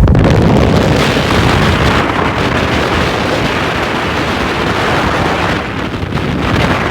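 Loud wind rushing and buffeting over the microphone in a moving car, over road noise.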